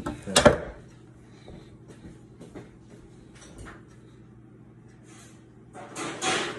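Metal spoon clinking and scraping against a metal cupcake tin as cake batter is spooned into the cups. A sharp clink comes about half a second in, then light taps, then a longer scrape near the end.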